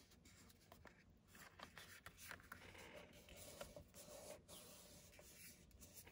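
Faint rustling and rubbing of paper as hands press and smooth a glued paper piece down onto a tag, with a few small clicks.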